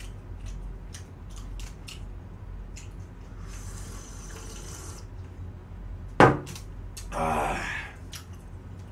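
Close mouth sounds of someone eating fried chicken: scattered small smacking and chewing clicks, then a sip from a mug about four seconds in. About six seconds in comes one sharp, loud knock, which fits the mug being set down on the desk. A short vocal sound follows, like an exhale after drinking.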